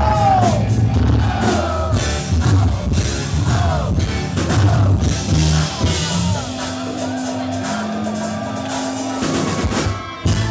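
A live rock band playing at full volume: electric guitar with sliding notes, bass and drum kit, with a singer's voice over the band.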